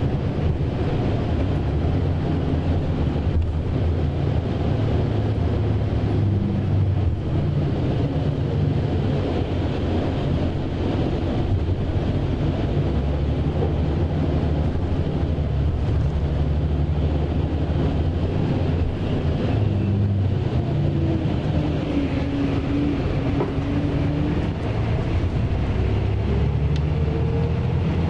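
Steady engine and road noise inside the passenger cabin of a moving Scania K420 coach, a Marcopolo Paradiso 1800DD double-decker: a constant low hum with tyre rumble. A faint whine rises in pitch near the end.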